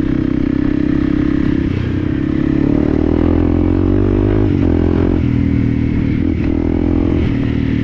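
Motorcycle engine running as the bike is ridden off-road, its pitch rising from about two seconds in and dropping back around five seconds.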